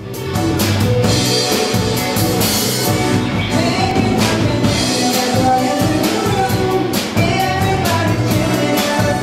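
Live rock band playing: electric guitar and drum kit with cymbal hits keeping a steady beat, and a singer coming in on lead vocals about four seconds in.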